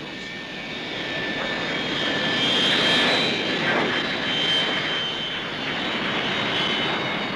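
Jet engines of a de Havilland Comet 4B airliner, four Rolls-Royce Avons, running: a rushing noise with steady high whining tones that swells to its loudest about three seconds in, then holds.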